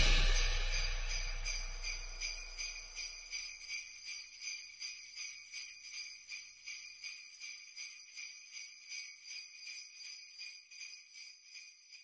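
Jingle bells shaken in a steady beat, about two or three shakes a second, slowly fading out, with the tail of the background music dying away at the start.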